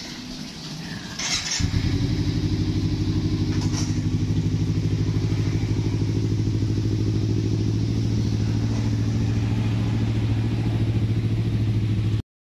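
Motorcycle engine starting about a second and a half in, then idling steadily with an even beat.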